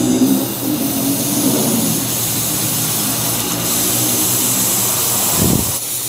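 Ronch handheld laser welder running and welding steel plate: a steady, loud rushing hiss with a low hum underneath. A brief low thump comes near the end.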